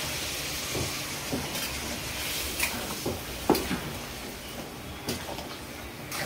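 Hot water hissing and sizzling in a hot metal kadhai of frying masala, the hiss dying down over the first second or two. Then a metal spatula stirs the curry, knocking and scraping against the pan a few times.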